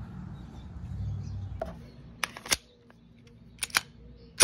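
Glock 19X 9mm pistol being loaded: after some soft handling, a pair of sharp clicks as the loaded magazine seats in the grip, then metallic clacks of the slide being worked. The loudest snap comes at the very end, as the slide runs forward.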